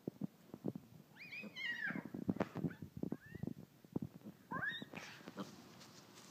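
Piglet grunting in a rapid series of short, low grunts while nosing a soccer ball along the grass, with two higher-pitched squeaky calls, about a second in and again past the middle.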